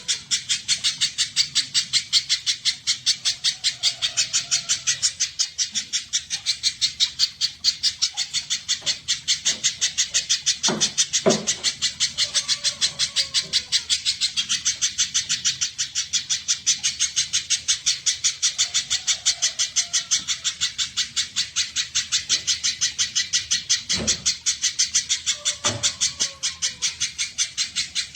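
Spiderhunter (pijantung) calling: a rapid, steady run of sharp high chips at about five a second, repeated without a break. A few dull knocks sound about a third of the way in and again near the end.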